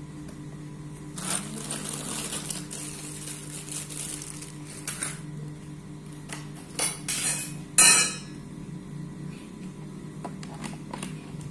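Small metal and plastic tricycle parts being handled: a stretch of plastic wrapping rustling, then several clinks and knocks, the loudest clatter about eight seconds in.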